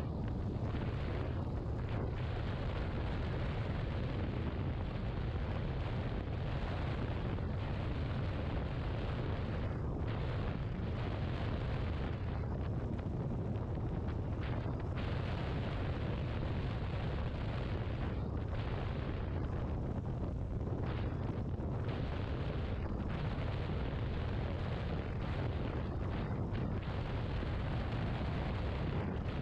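Steady, deep wind rumble buffeting the microphone of a camera riding on a Yamaha XMAX 250 maxi-scooter at road speed, with the hiss of the moving ride beneath it.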